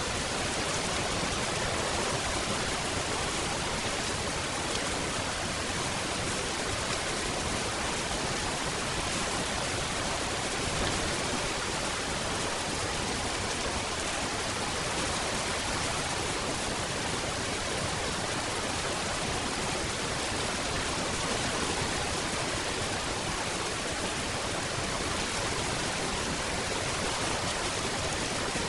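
Steady rain falling: an even, unbroken hiss with no single drops or thunder standing out.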